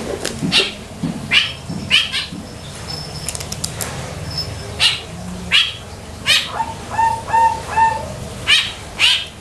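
Birds chirping: short, high, downward-sliding chirps repeating every half second or so, with a run of four lower, evenly spaced calls past the middle.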